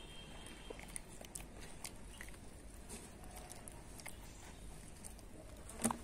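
Rhesus macaque chewing and biting a piece of roti: faint, scattered smacking and crunching clicks, with one sharper click near the end.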